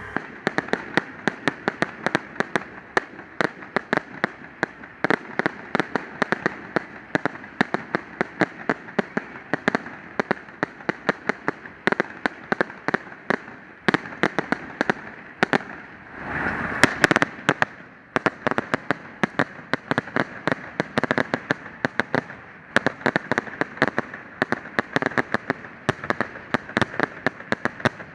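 Fireworks display going off: a rapid string of sharp bangs and pops, several a second, with a louder rushing swell about sixteen seconds in.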